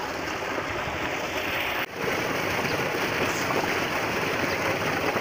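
Water pouring from a pipe into a concrete tank, a steady rushing that drops out for a moment about two seconds in and then carries on.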